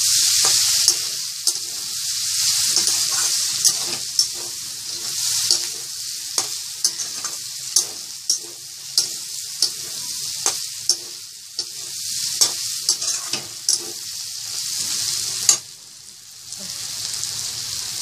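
Prawns, onions and spring onions sizzling in a steel wok while a metal slotted spatula stirs and scrapes them, clicking against the pan about once a second. Near the end a louder knock, then the sizzle briefly drops away before coming back.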